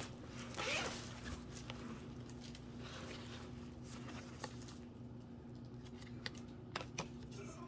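Hands handling a recycled-nylon tote bag: soft rustling and scraping of the fabric, loudest in the first second, with a few light clicks in the second half.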